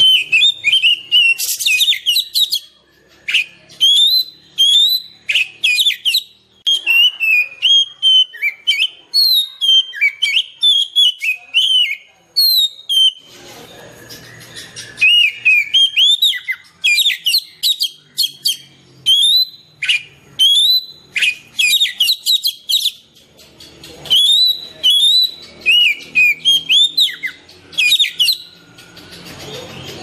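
Oriental magpie-robin (kacer) singing: rapid runs of loud, sliding whistled notes, in phrases broken by short pauses.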